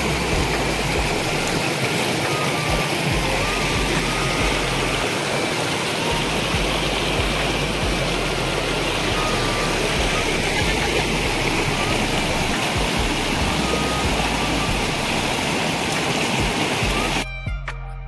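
Steady rush of water pouring over rock ledges in a small stream cascade. Near the end it cuts off suddenly and gentle background music takes over.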